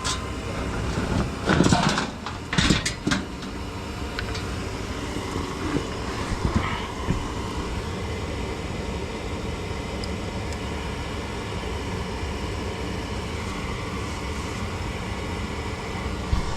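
Ultra low NOx gas furnace running steadily with its burners lit, before the blower motor has come on: a steady whir. A few knocks sound in the first three seconds.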